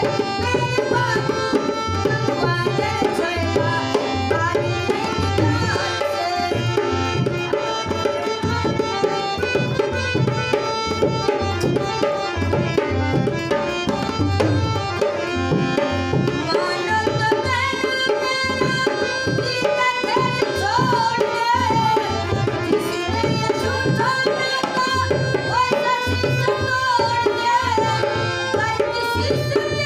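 Indian folk song: a woman sings to her own harmonium accompaniment over a steady rhythm on a dholak.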